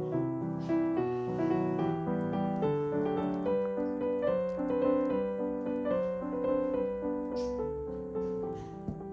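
Background piano music, a slow line of held, overlapping notes over chords.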